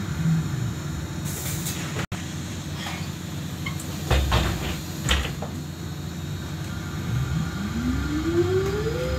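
Inside a Solaris Trolino 12 trolleybus: a low steady rumble while it stands, a brief hiss of air, and a couple of sharp thumps about four and five seconds in. About seven seconds in, the electric traction motor's whine starts and rises steadily in pitch as the trolleybus pulls away.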